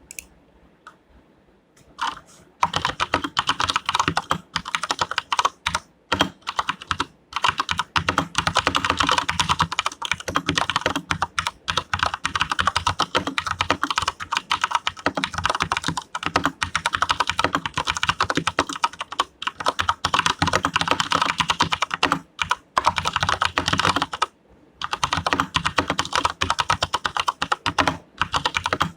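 Fast, continuous typing on a KB Paradise VX80 87-key mechanical keyboard with Cherry MX Brown switches: a dense patter of keystrokes that starts about two and a half seconds in and breaks off briefly near the end.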